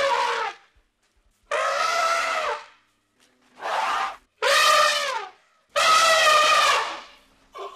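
African elephant trumpeting: about five calls, each about a second long, with short pauses between them.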